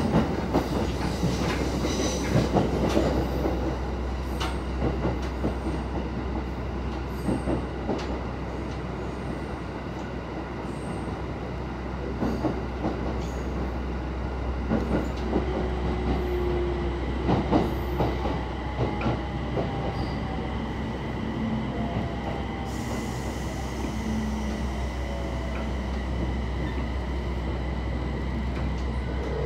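Train running noise heard from inside a passenger car moving through station tracks: a steady low rumble with the wheels clicking over rail joints and points. There are a few faint wheel squeals around the middle.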